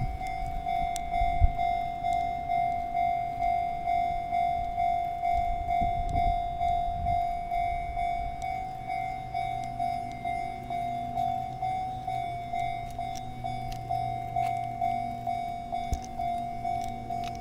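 Japanese railway level-crossing warning bell ringing while the barriers are down, a steady electronic ding about twice a second that signals a train approaching or passing. A low hum joins about eight seconds in.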